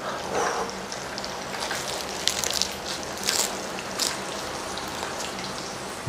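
A big mouthful of lettuce wrap with grilled pork belly being chewed, with a few crisp crunches of lettuce. Under it is a steady hiss of pork belly sizzling on the grill pan.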